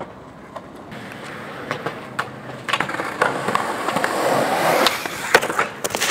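Skateboard wheels rolling over concrete, growing louder, followed by a few sharp clacks of the board a little over five seconds in.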